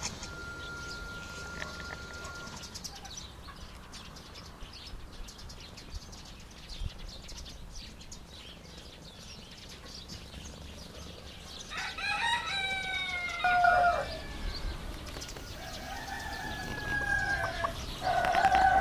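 Rooster crowing three times in the second half, the last crow the loudest and still going at the end.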